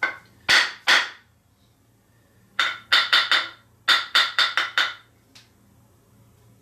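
Small 1018-steel plane-adjusting hammer tapping a wooden hand plane to set its blade: sharp, short taps with a brief metallic ring, in three quick groups of three, four and five.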